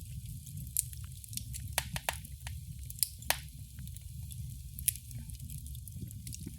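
Fireplace fire crackling: sharp, irregular pops and snaps over a steady low rumble and hiss of burning. The loudest pair of snaps comes a little after three seconds in.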